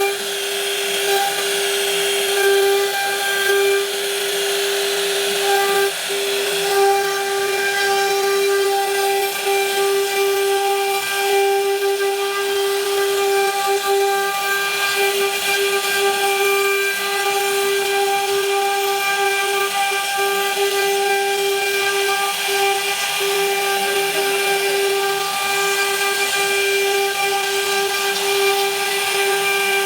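CNC router spindle running steadily at high speed while cutting wood: an even, high-pitched whine with a rushing hiss over it, dipping briefly a few times.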